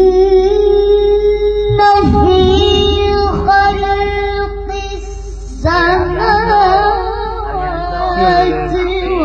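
A young female voice singing long held notes, with a change about two seconds in and a wavering, ornamented vocal line from a little past halfway.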